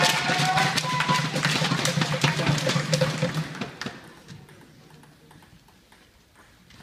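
Crowd clapping over electronic organ music, both dying away about three and a half seconds in, leaving a quiet hall.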